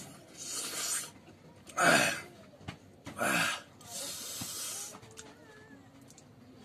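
A man's breathy vocal sounds: two stretches of hissing breath, and between them two short, louder voiced gasps about two and three and a half seconds in, the first the loudest.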